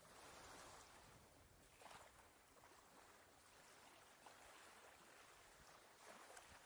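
Faint small waves lapping on a sandy shore, a soft washing hiss that swells a few times.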